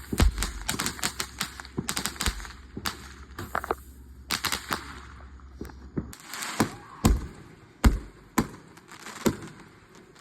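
Consumer fireworks going off: a quick crackling run of firecracker pops for the first few seconds, then scattered louder bangs in the second half.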